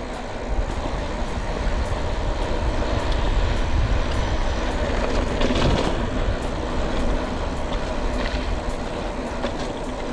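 Road noise heard from a moving bicycle: wind rumbling on the microphone, with motor traffic swelling to its loudest a little past the middle and easing off.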